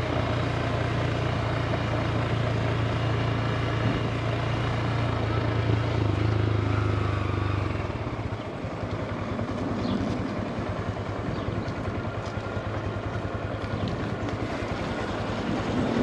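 2022 Honda Grom's small single-cylinder engine running as the motorcycle is ridden, with a steady hiss of air over the microphone. A little past halfway the steady engine tone drops away to a lower, pulsing note.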